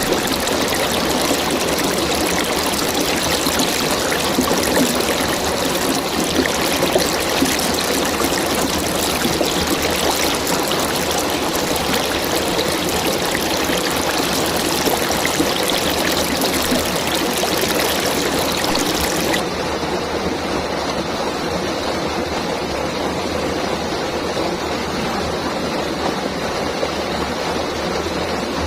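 River water flowing with a steady rushing sound; about two-thirds of the way through it changes abruptly to a duller, lower rush without the high hiss.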